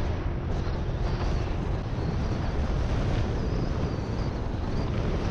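Steady wind noise on the microphone of a camera on a moving scooter, mixed with the scooter's running and road noise.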